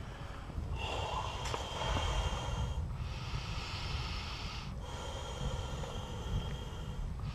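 Air being blown hard into the inflation tube of a Nautiraid Grand Narak 550 folding kayak's sponson: long hissing exhalations of about two seconds each, three in a row with short pauses for breath between, as the sponson is pumped up to full pressure.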